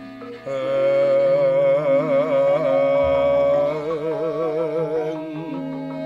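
Javanese gamelan music: a high female voice sings a slow melody with wide vibrato over steady, sustained metallophone tones, and a low gong tone enters about three seconds in.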